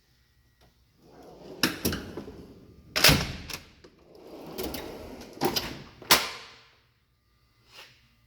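Steel drawers of a Snap-on Epiq toolbox sliding on their runners and shutting with loud metal clunks: a slide ending in a bang about three seconds in, then another slide ending in two bangs about six seconds in.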